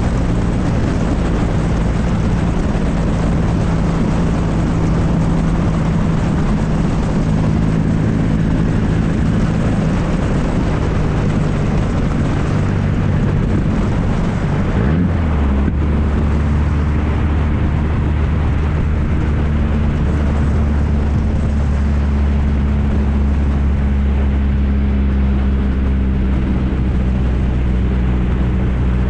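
1994 Ford Ranger's 2.3-litre four-cylinder running loud through an exhaust with no muffler. The engine note is steady, then about halfway through its pitch shifts and it settles into a lower, deeper drone.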